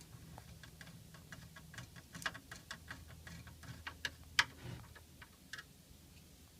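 A screwdriver driving a long screw through a case fan into a liquid-cooler radiator: a run of small, irregular metal clicks and ticks, one louder click about four and a half seconds in.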